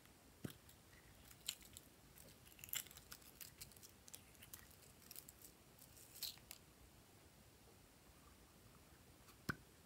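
Faint clicks and light crackling of small plastic glitter containers being uncapped and handled, with one sharper click near the end.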